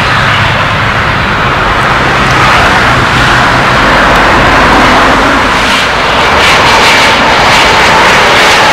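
A Fokker 50's twin turboprop engines at takeoff power as it lifts off and climbs. About six seconds in, the sound changes to the steady whine of a Dassault Falcon 7X business jet's turbofans on landing approach.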